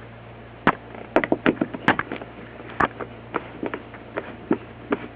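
Irregular sharp clicks and light knocks of small metal hardware, bolts and screws, being handled and set down, over a steady low hum.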